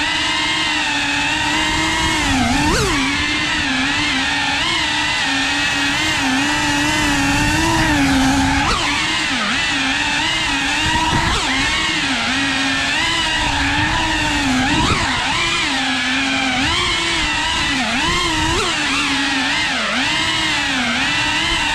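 FPV quadcopter's brushless motors and propellers whining steadily. The pitch keeps dipping and rising every second or so as the throttle changes.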